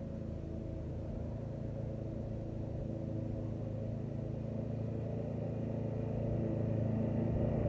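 Briggs & Stratton lawnmower's single-cylinder four-stroke engine running steadily, gradually getting louder, after its loose brake and kill-switch cable, which had kept the engine shut off, was fixed.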